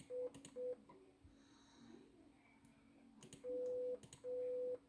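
Morse code practice beeps from Google's Morse learning program, one steady tone: two short dots in the first second, finishing a run of three, then two long dashes, dash-dash (the letter M), in the last second and a half. Faint clicks come just before the dashes.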